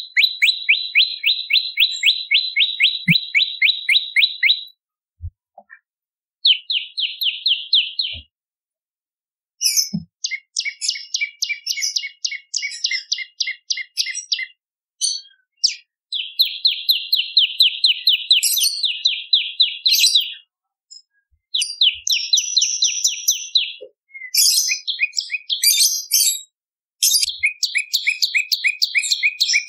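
Prenjak lumut singing: phrases of rapid, evenly repeated high chirps, about four to five a second, each phrase lasting a few seconds with short pauses between.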